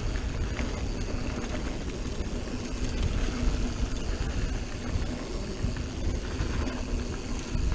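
Mountain bike rolling fast down a dirt singletrack: steady tyre rumble on packed dirt and wind buffeting the camera's microphone, with small clicks and rattles from the bike over bumps.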